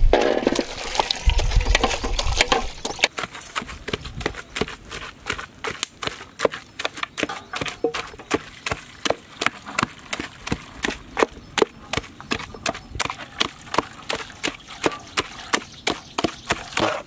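Wooden-handled masher pounding boiled mutton and lentils for haleem in a large pot: a regular knock about twice a second. The first few seconds are louder, with heavier, duller thuds.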